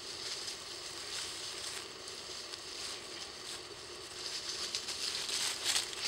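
Dry fallen leaves rustling and crackling under the paws of Havanese puppies running and tussling, with the crackles getting louder and closer together about four seconds in.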